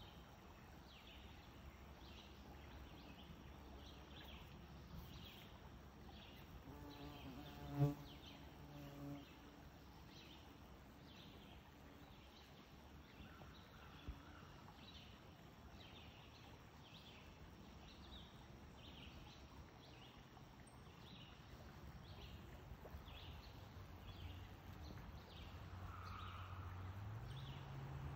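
Faint outdoor insect sounds: a high-pitched insect call pulsing about once a second, and a short close buzz of a flying insect about eight seconds in.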